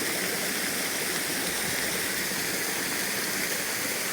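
Waterfall: falling water rushing in a steady, even roar.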